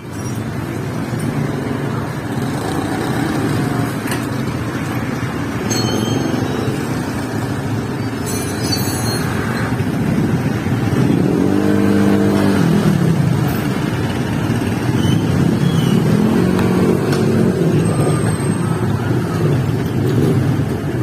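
Motor vehicle engines running steadily, with one engine rising and then falling in pitch about halfway through.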